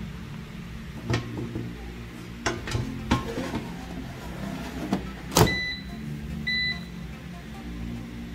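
Air fryer basket knocking and rattling as it is handled and slid into the machine, with a loud clunk a little past five seconds in as it seats, followed by two short high beeps from the air fryer.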